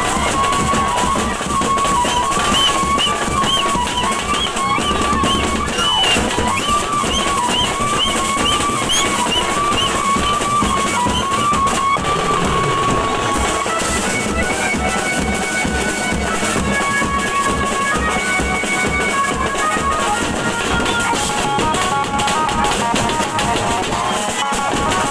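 A banjo-party band playing loud dance music: drums keep a steady beat under a wavering lead melody, which changes tune about halfway through.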